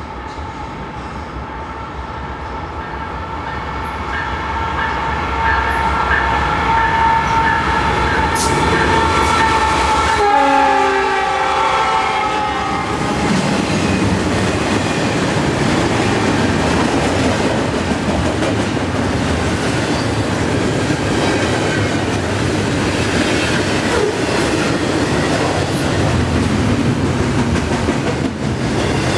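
Freight locomotive air horn sounding a steady multi-note chord as the lead diesels approach, its pitch dropping as they pass about ten seconds in. Then the steady rumble and clatter of a long string of intermodal well cars rolling by at about 45 mph.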